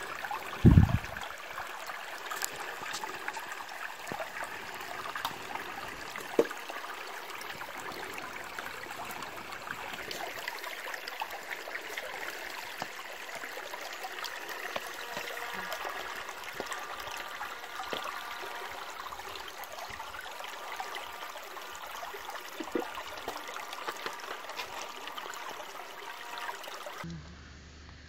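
Shallow rocky creek running over and between boulders, a steady watery rush. There is a low thump about a second in. Near the end the water drops away to a quieter background.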